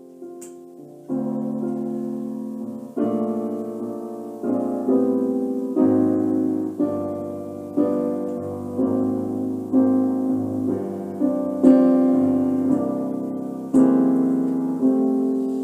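Keyboard playing a slow piano introduction in a jazz style: sustained chords struck about once a second, each one fading before the next.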